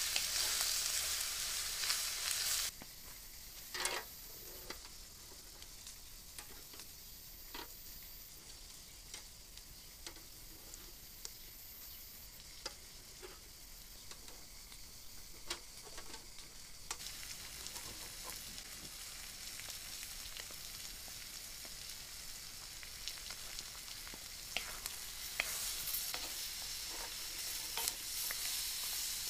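Chunks of liver sizzling loudly in a wide steel pan over a wood fire, stirred with a wooden spatula. The sizzle cuts off abruptly about three seconds in, giving way to a quieter stretch of scattered sharp clicks as metal kebab skewers are turned on a charcoal grill, then the frying hiss builds again in the second half.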